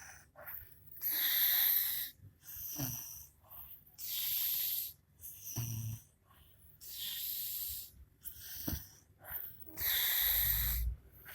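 A woman snoring in her sleep: a loud, hissing, wheezy breath about every three seconds, four in all, each followed by a shorter, low snort.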